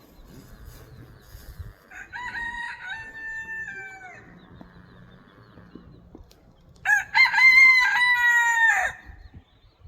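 A rooster crowing twice: a fainter crow about two seconds in, then a much louder crow near the end, each drawn out and dropping in pitch at the close.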